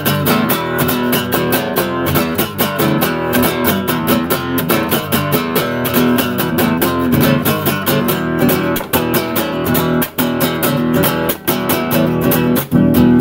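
Acoustic guitar strummed in a steady, driving rhythm, chords changing as it goes, with no voice over it.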